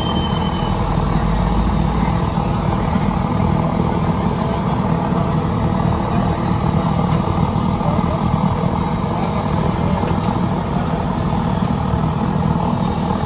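Steady street noise: vehicle traffic running with indistinct voices mixed in.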